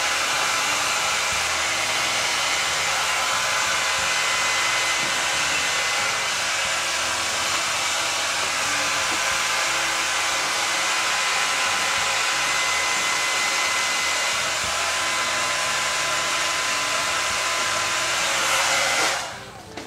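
Handheld hair dryer blowing steadily, a loud even rush of air with a faint steady whine in it, stopping near the end.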